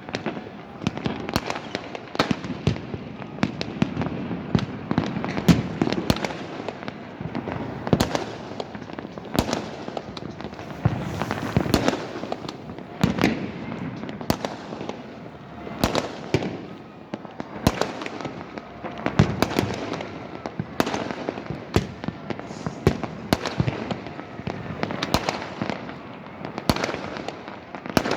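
Many fireworks going off at once: a steady crackle of bursts with frequent sharp bangs at irregular intervals, no pause.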